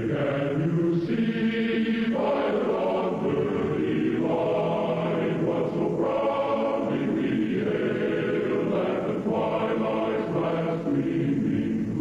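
A choir singing a slow national anthem in long held notes, the chord shifting every second or two.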